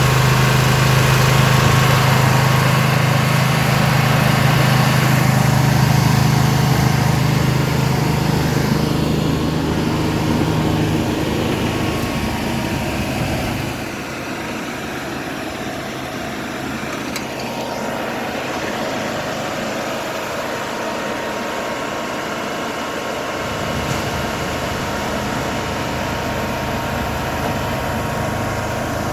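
Engine of cable-laying machinery running steadily. Its deep hum drops away about eleven to fourteen seconds in, leaving a thinner steady running sound, and a low drone comes back about twenty-three seconds in.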